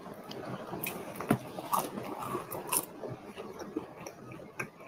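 Close-miked eating: a sauce-drizzled breaded chicken tender bitten and chewed, with wet mouth sounds and a run of sharp clicks, the loudest about a second in.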